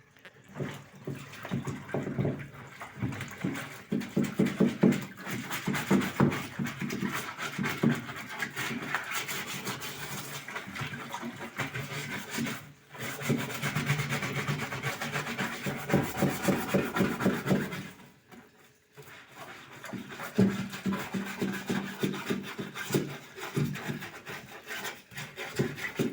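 Brush scrubbing caked mud off the plastic bottom of a Haier twin-tub washing machine's wash tub in a little water, in fast back-and-forth strokes, stopping briefly twice.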